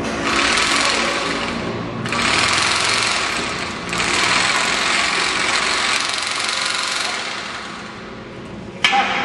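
Portable bag-closing sewing machine running as it stitches the top of a filled woven sack shut. It goes in three runs with brief breaks about two and four seconds in, fades out around seven to eight seconds, and then there is a short sharp sound near the end.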